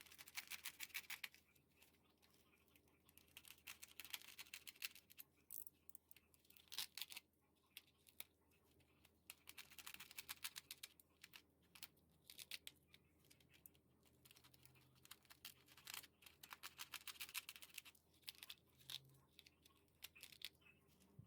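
Dried loofah being worked by hand: dry crackling and tearing in repeated stretches of a second or two, with short pauses between.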